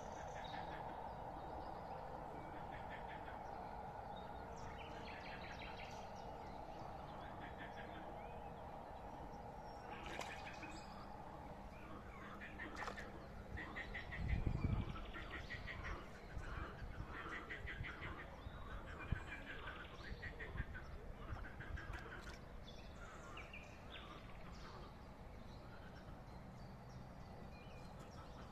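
Pond-side outdoor ambience: a steady low hum at first, then from about a third of the way in a run of short, rapidly pulsed animal calls repeating every second or so. A brief, loud low thump comes about halfway.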